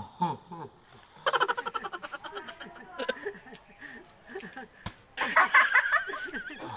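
Children laughing and calling out, with one short, sharp slap about five seconds in as a raw egg in a plastic bag is smacked against a boy's bare chest.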